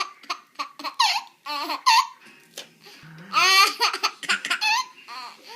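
A baby laughing in short bursts of giggles, then a longer peal of laughter a little past halfway.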